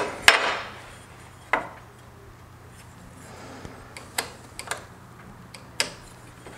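A metal speed square being set and shifted against wooden sill stock while a pencil marks a miter line: about half a dozen sharp clicks and light taps spread out, one followed by a short scrape. A faint steady low hum underneath.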